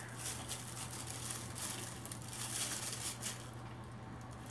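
Thin plastic bag rustling and crinkling in irregular spells as a cat paws and bites at it, dying down near the end.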